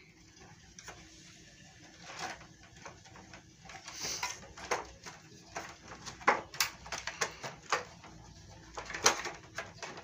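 Irregular plastic clicks and knocks as the electrical box cover on an LG split air-conditioner's indoor unit is handled and pressed back into place, the loudest a few sharp snaps about six and nine seconds in.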